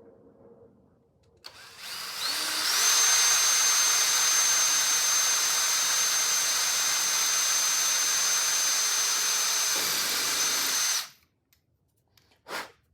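Electric drill boring into a steel door hinge: it spins up about a second and a half in, runs steadily with a high whine, and stops suddenly. This is the small pilot hole drilled before stepping up to a 3/32 bit for a roll pin. A brief noise follows near the end.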